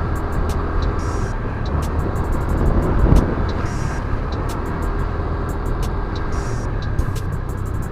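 Honda Click 125i single-cylinder scooter running steadily on the road, its engine drone mixed with a constant low rush of wind and road noise.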